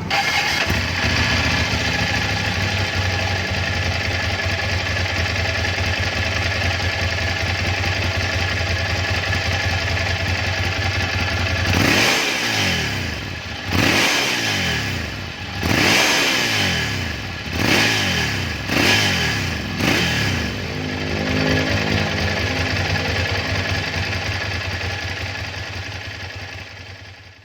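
Ducati Monster 796's air-cooled L-twin engine through its stock exhaust, idling steadily, then given about six quick throttle blips that each rise and fall in pitch, then settling back to idle and fading out near the end.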